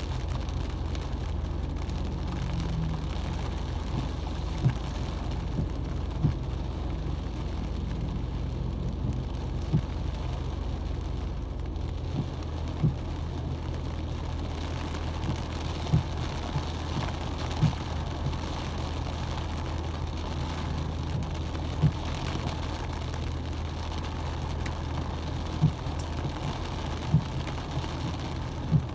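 Rain falling on a car's windshield and body, heard from inside the cabin over the steady low hum of the idling engine, with single sharp taps every one to four seconds.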